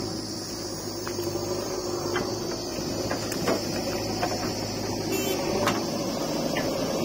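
Diesel engines of a JCB 3DX backhoe loader and a farm tractor running steadily. Scattered knocks and clatter sound as the backhoe bucket tips soil into a steel trolley.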